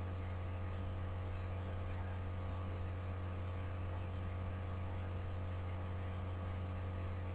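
Steady low electrical mains hum, with fainter higher steady tones over it.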